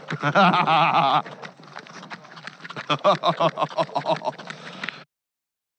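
A man's drawn-out, wavering exclamation, then a run of hearty laughter, with scattered sharp clicks and taps over it; the sound cuts off abruptly about five seconds in.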